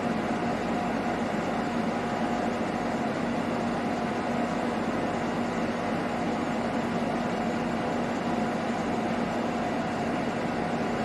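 CNC machine running with a steady, even hum and noise, holding a constant low tone and a higher one, with no impacts.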